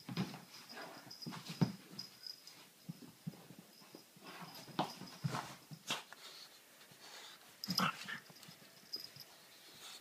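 A dog and a cat play-fighting: irregular bursts of scuffling, bumping and dog mouthing noises, loudest about a second and a half in and again near the end.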